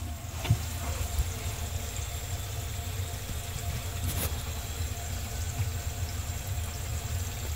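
Water draining from a bathroom vanity sink down through the pop-up drain's tailpiece, a steady rush of water in the pipe, run as a leak test of the pop-up rod nut. A single click about four seconds in.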